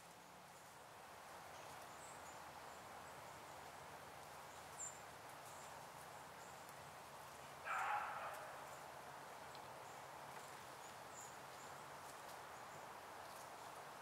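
Faint woodland ambience: a steady soft hiss with scattered faint, high-pitched chirps. About eight seconds in comes a short rustle as a red squirrel scrambles onto the stone wall.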